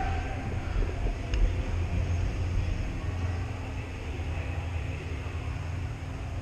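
Steady low rumble picked up by a head-mounted action camera's microphone as the player moves and crouches, easing a little once the camera settles, with one faint click about a second and a half in.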